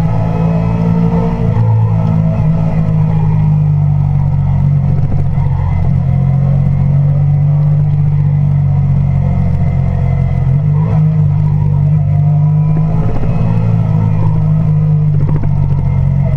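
Sport motorcycle engine running under way, picked up by a camera mounted on the bike; the engine note holds steady, with a couple of shifts in pitch, about two seconds in and again about ten seconds in.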